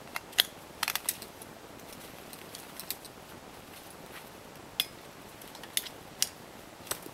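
Metal ratchet buckle and hook of a ratchet strap clicking and clinking as they are handled: about ten sharp, irregular clicks, a quick cluster of them about a second in.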